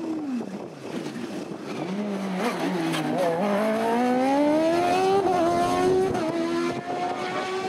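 Open-wheel single-seater race car engine passing and pulling away. The note falls at first, then climbs steadily for a few seconds as it accelerates, dips briefly about five seconds in, and holds near the end.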